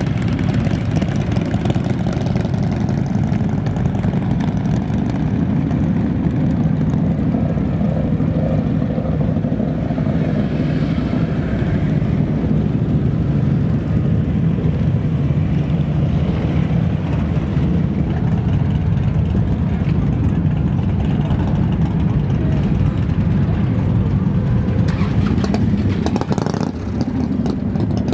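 Motorcycle engine running steadily, a continuous deep, low rumble that eases briefly near the end.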